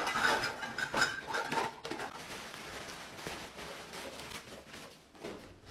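Rustling fabric and light knocks of plastic toys as a zipped cloth toy-storage bag full of toys is stuffed into a canvas basket. The clatter is busiest in the first couple of seconds, then dies down to quieter rustling.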